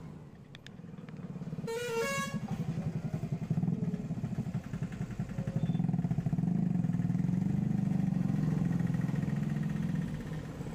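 A vehicle engine running steadily, growing louder in the second half, with a short horn sounding about two seconds in.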